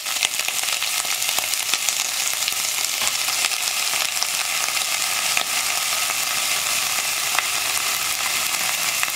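Pieces of breadfruit, still wet from their soaking water, going into hot coconut oil with onions, green chillies and beans in a steel pressure cooker and sizzling steadily, with small crackles and pops throughout.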